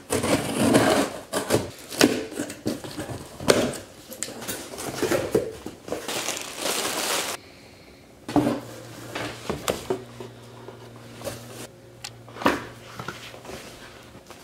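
A cardboard shipping box being cut open with scissors and unpacked: cardboard and packing paper rustling and crinkling with sharp clicks and scrapes for several seconds. Then quieter handling of boxed items with scattered knocks on the table and a low steady hum underneath.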